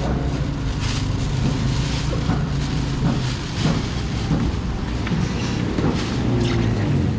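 Steady low hum of an idling engine, with scattered faint voices and clatter of a busy street market.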